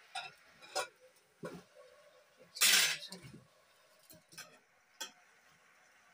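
Metal utensil clinking and knocking against a steel cooking pan as leafy greens are stirred, a few separate clinks with one louder scrape a little over two and a half seconds in.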